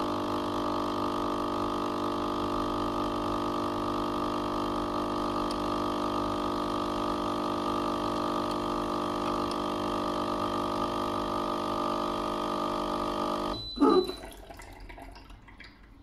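Noon East 19-bar capsule coffee machine's pump running with a steady hum while pushing water through for a big-cup espresso, then cutting off about two seconds before the end with a short loud burst.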